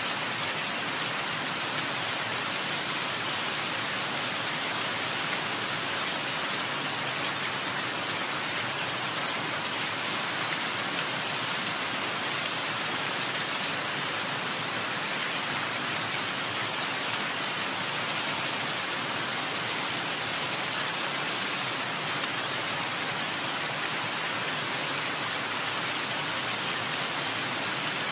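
Steady, even hiss of falling or rushing water, with no separate drops, splashes or changes standing out.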